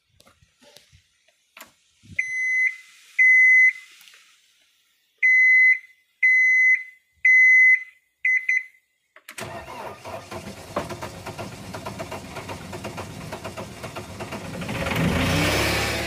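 Warning beeps from a John Deere skid steer's instrument panel at key-on: two high beeps, a pause, then four more and a quick flurry. About nine seconds in, its diesel engine starts and runs, rising in speed near the end, on its first start after a chafed diesel fuel supply line was refitted.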